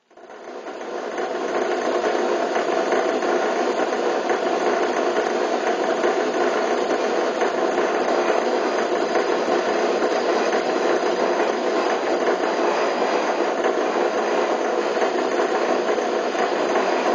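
Milling machine with a large end mill cutting a flat into a metal bar, a dense, steady machining noise. It starts suddenly, builds over about a second, then holds steady.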